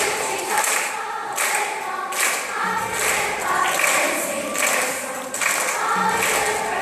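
Children's choir of fifth-graders singing a song together.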